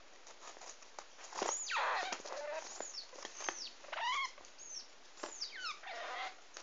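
Degu squealing: a series of about six high calls that slide steeply down in pitch, the longest starting about a second and a half in and another near the end, with short clicks in between. Agitated calls of an angry degu.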